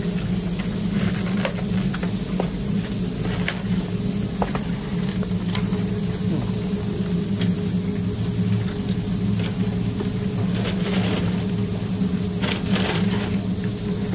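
A steady low mechanical hum with scattered light clicks and taps.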